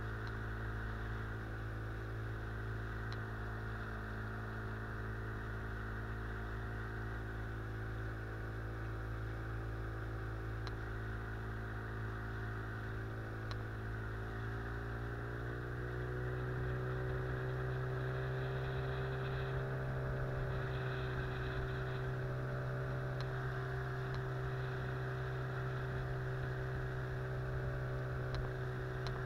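Boat's outboard motor running steadily under way upriver; about halfway through its pitch rises and it gets a little louder as the throttle is opened, then holds at the higher speed.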